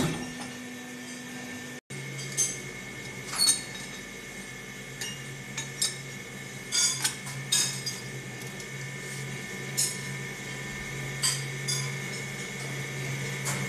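Steady hum of a press brake's motor, with about a dozen sharp metallic clinks as steel clamp blanks are handled and set against the bending die.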